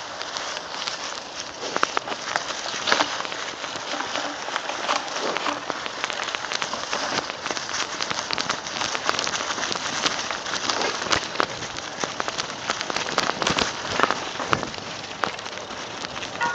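Mountain bike tyres rolling fast downhill over dry leaf litter and forest dirt: a continuous crackling rush, with frequent sharp clicks and knocks as the bike goes over bumps.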